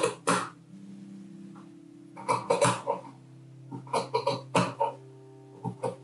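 Dressmaking shears snipping through pinned fabric: four short runs of quick, crisp cuts, each a few blade closures in a row.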